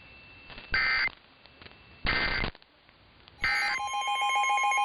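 Three short Emergency Alert System digital data bursts, the buzzy warbling SAME tones that mark the end of an alert message, about a second and a half apart. Near the end, a steady electronic alert tone starts, pulsing over a held note.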